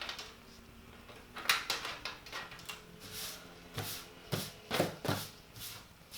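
A PC case and its packaging being handled: scattered knocks and short scraping rustles, several close together past the middle.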